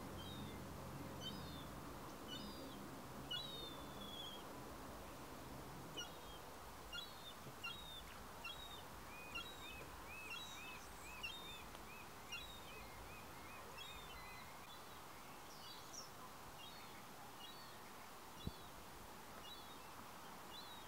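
Small birds chirping and calling in short high notes throughout, with a quick run of about a dozen arched notes near the middle, over faint harbour ambience. A low steady hum fades out in the first few seconds, and there is a single sharp click near the end.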